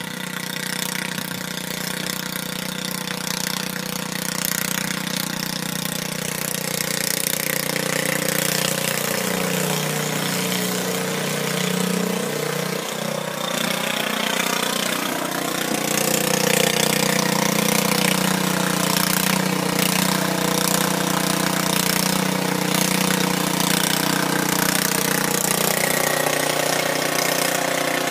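Small single-cylinder-style engine of a riding lawn tractor running steadily as it drives across snow, its speed wavering briefly around the middle and the sound growing louder as it comes closer.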